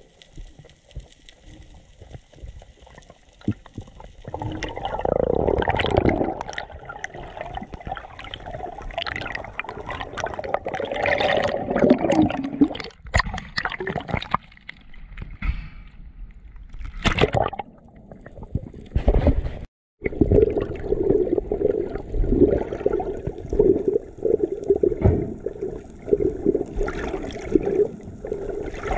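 Muffled rushing and gurgling water heard from an action camera held underwater while a freediver swims after a fish. It starts faint and swells about four seconds in, breaking off for an instant about two-thirds of the way through.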